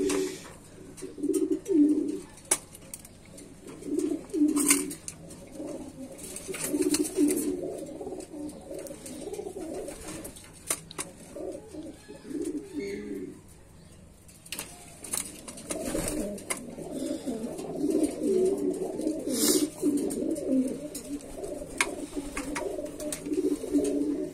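Domestic pigeons cooing over and over in low, rolling phrases, with a few sharp clicks in between; the cooing stops briefly a little past halfway.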